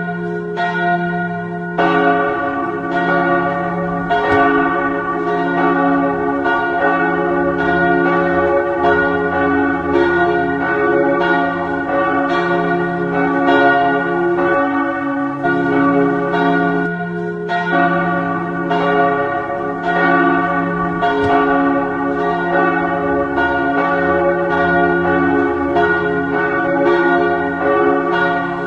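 Church bells pealing: several bells struck in quick succession, each strike ringing on into the next so the sound never stops, with a brief lull about 17 seconds in.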